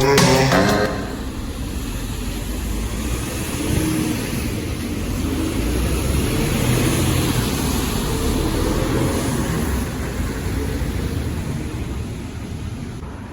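A vehicle's steady low engine rumble, a little louder through the middle and easing near the end. Music fades out within the first second.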